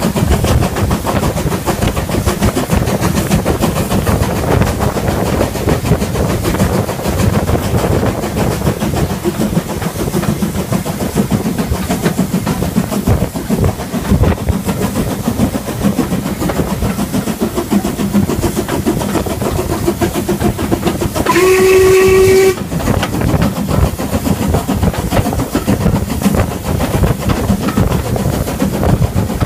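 Ivatt Class 4MT steam locomotive under way: rapid, steady chuffing from its exhaust mixed with wheels clattering over the rail joints. About two-thirds of the way through, one short blast on its steam whistle, a single steady note lasting about a second.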